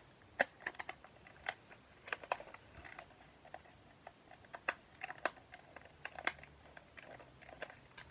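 Scattered light clicks and taps at irregular intervals, a few a second, of fingers tapping and pressing at a handheld device.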